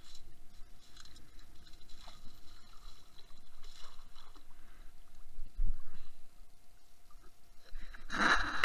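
Muffled underwater sloshing as a perforated metal sand scoop is shaken to sift sand, heard through a waterproof camera housing, with a louder rush of water near the end.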